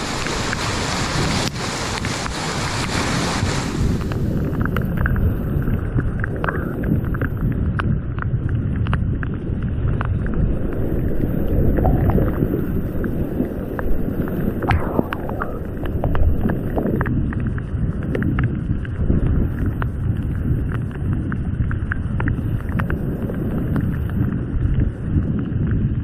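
Rushing floodwater and breaking waves around a whitewater kayak. A bright hiss for the first four seconds gives way to a duller, muffled rush, with frequent short knocks and splashes against the boat and camera.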